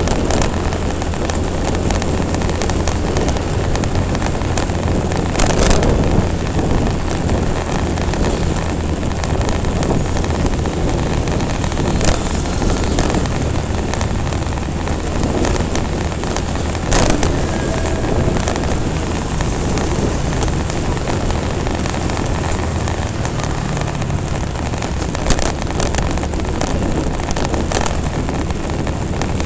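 Wind rushing over the microphone on a moving Honda Revo FI motorcycle, with the low drone of its single-cylinder engine underneath. A few louder gusts of buffeting stand out along the way.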